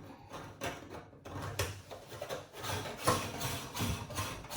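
Irregular small clicks, knocks and scrapes of a washer and nut being handled and fitted onto a kitchen tap's threaded tail under the sink, busier from about a second and a half in.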